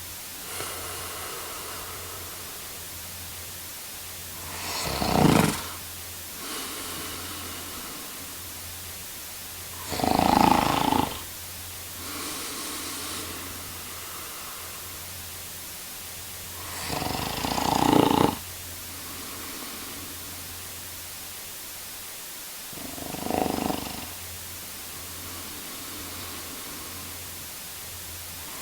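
A sleeping man snoring: four loud snores about six seconds apart, each followed by a softer breath out. A low, steady hum runs underneath.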